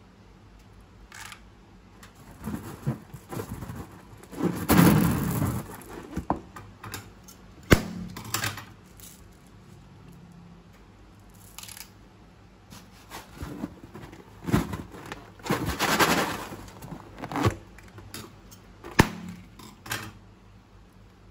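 Handling sounds of slime-making materials: irregular crinkles, squishes and rustles, with two longer rustling swells and a couple of sharp clicks.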